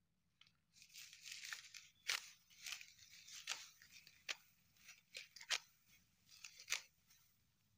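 Dry rice stalks crackling and snapping as they are cut and gathered by hand in a paddy harvest: a run of crisp rustling with several sharp snaps.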